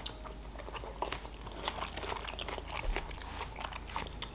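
Close-up chewing of a mouthful of strawberry, a dense run of small mouth clicks.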